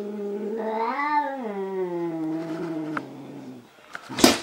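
A long-haired cat gives one long, low, drawn-out yowl that rises about a second in and then sinks slowly before fading out. It is an angry threat call at its own reflection, which it takes for a rival. Near the end comes a sharp loud knock as its paw strikes the mirrored wardrobe door.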